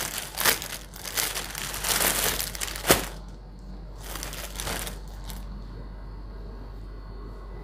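Clothes being handled and folded, rustling and crinkling with sharp crackles for about three seconds, then one softer rustle a little past the middle. After that only a low steady hum remains.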